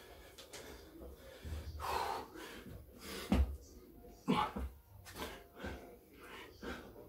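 Hard, gasping breaths from a man doing burpee-style Navy SEAL reps, with a heavy thud about three seconds in as he drops to the concrete floor into push-up position, then a few softer knocks.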